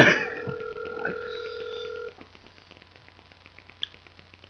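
Ringback tone of an unanswered phone call played through a mobile phone's speakerphone: one steady ring lasting about two seconds, stopping about halfway through, the station's line still not picking up.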